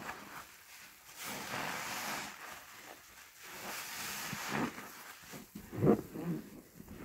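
HDX sponge squeezed and kneaded by gloved hands in thick soap suds: wet squelching and foam crackle coming in slow swells, with a louder squelch near the end.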